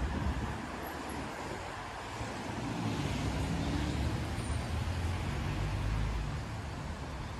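Street traffic on wet asphalt, the tyres hissing steadily. About halfway in, a passing vehicle's engine rumble swells and then fades.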